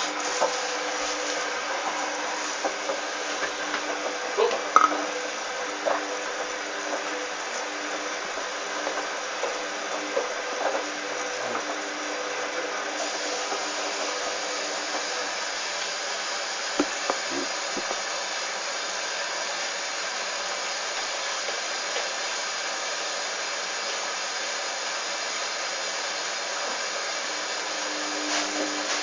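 Hoover Dynamic washing machine running steadily with a motor whine and hiss. About thirteen seconds in, the upper hiss steps up and grows brighter.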